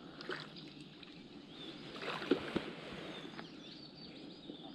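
Quiet lakeside ambience: faint chirps from distant birds and a few soft clicks.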